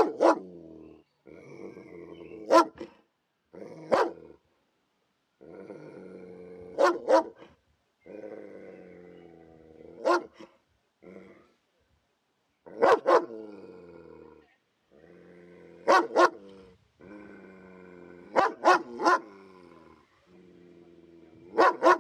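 Police dog growling in long low stretches broken by sharp barks every few seconds, the barks coming singly or in quick bursts of two or three.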